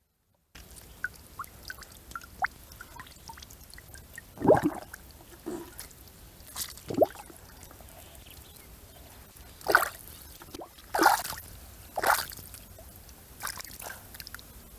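Water splashing and dripping in irregular plops, with a handful of louder splashes spread through the middle and second half.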